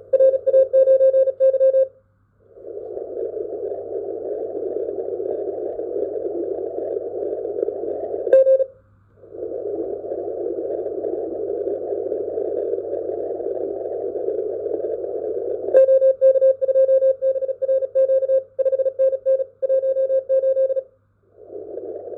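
Shortwave radio receiver in CW mode on the 20-metre amateur band, a narrow filter passing a hiss of band noise. A Morse code tone keys on and off in quick bursts near the start and again in the last third: a CQ call from amateur station RA9Y. The receiver audio drops out briefly three times, over a faint steady mains hum.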